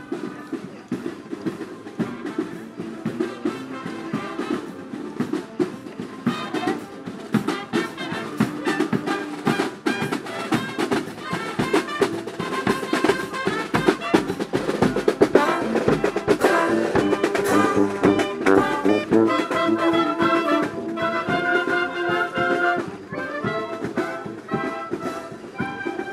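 Marching band playing a march as it passes: snare drums and a bass drum keep the beat with cymbal crashes, and brass horns carry the tune. It grows louder to about halfway through, then the brass drops back a few seconds before the end.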